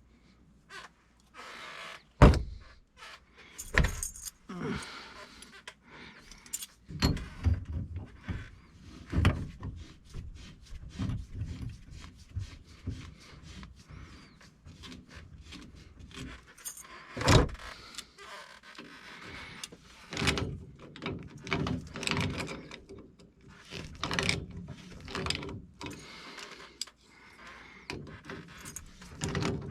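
Metal tools and plumbing parts being handled: irregular clinking and knocking, with a few sharp louder knocks among them.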